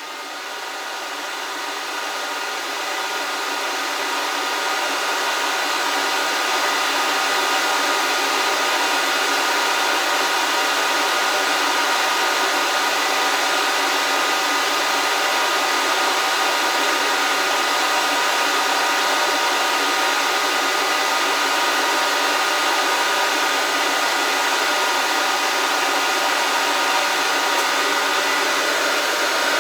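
Hot air rework station blowing steadily, its fan hum carrying several steady tones. It grows louder over the first several seconds, then holds level.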